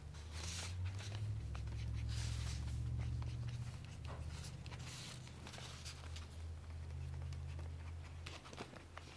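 Faint scratching of marker tips stroking across paper while coloring, over a low steady hum.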